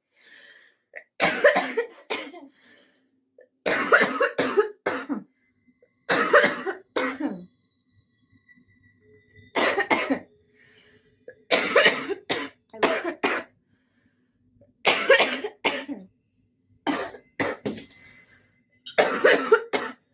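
A young woman coughing again and again, in about eight harsh fits of several coughs each, a smoker's cough.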